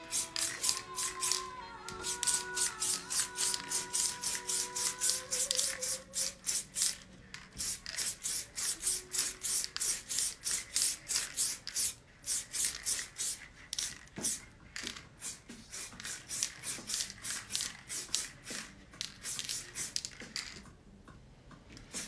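Spray paint can sprayed over a paper stencil in quick short hisses, about three or four a second, easing off near the end. Faint background music in the first few seconds.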